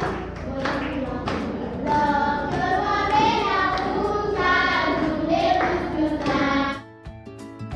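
A group of children singing together in unison, stopping about seven seconds in.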